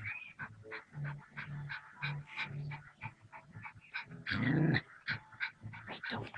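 Small terrier growling and yipping in short, repeated bursts while it attacks a cobra, with one longer, louder outburst about four and a half seconds in.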